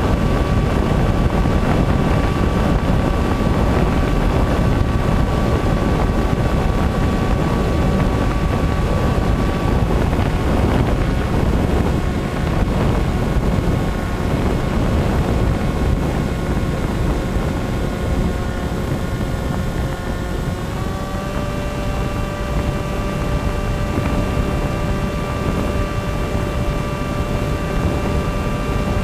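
Model airplane's motor and propeller in flight, a steady whine under heavy wind rush on the microphone. The whine softens about ten seconds in and steps up slightly in pitch about twenty-one seconds in, as the throttle changes.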